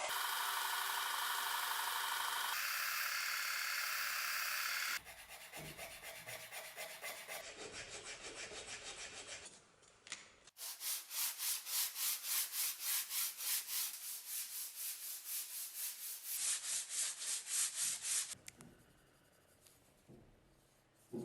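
Hand sanding of the cleaver's ash-wood handle, abrasive rubbing back and forth on the wood. A steady scrape for the first few seconds, then even strokes about two to three a second, dying away near the end.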